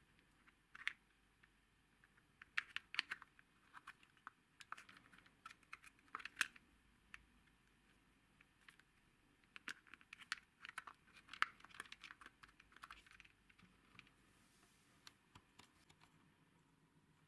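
Hard plastic clicks and rattles from a toy car's plastic battery compartment cover being handled and fitted into place, coming in scattered clusters of sharp taps.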